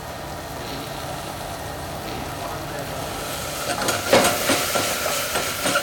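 Shallots, sugar and red wine sizzling steadily as they reduce and caramelise in a stainless steel saucepan. From about three and a half seconds in, the pan is swirled on the gas hob's grate, with a run of knocks and clatter.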